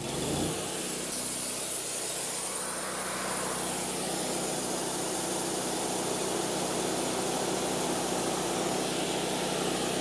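Wood-Mizer LT40 portable band sawmill's engine running steadily, an even drone.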